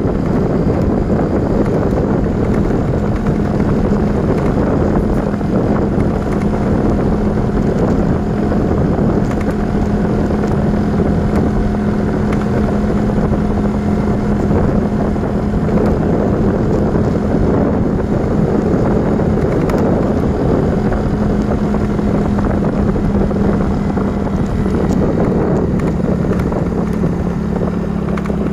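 Vehicle engine running at a steady cruising speed, a constant low hum, with wind rushing over the microphone as it moves along.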